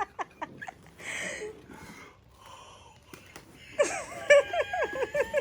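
A woman laughing in short breathy gasps, going quieter for a couple of seconds, then breaking into a run of high-pitched laughing squeals in the last second and a half, overcome at a surprise gift.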